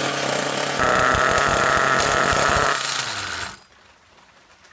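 HPI Trophy 4.6 RC buggy's nitro engine running with its exhaust blocked by a finger and cloth; it floods with fuel, falters and cuts out about three and a half seconds in.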